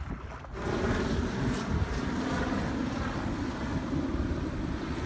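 Helicopter flying overhead: a steady engine and rotor noise that comes in about half a second in, with a thin high whine over it.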